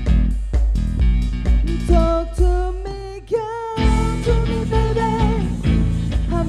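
Live band playing pop-rock: guitars and bass over a steady drum beat of about two hits a second, with a voice singing long held notes from about two seconds in.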